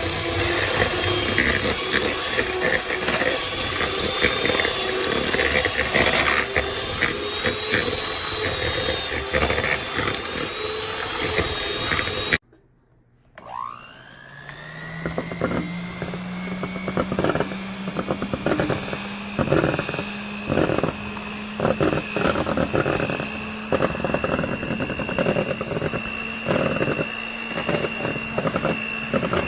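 A JIOJIOY 5-speed electric hand mixer running, a steady motor whine with many irregular clicks and knocks. About twelve seconds in it cuts off. A second later it starts again, its whine rising as the motor comes up to speed and then holding steady.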